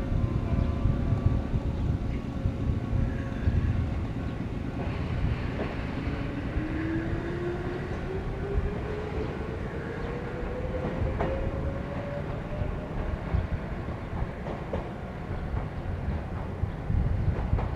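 Electric train of the Wakayama Electric Railway running, with a steady low rumble of wheels on rail and a motor whine rising steadily in pitch over several seconds as it picks up speed. A few sharp clicks come through from the wheels over rail joints.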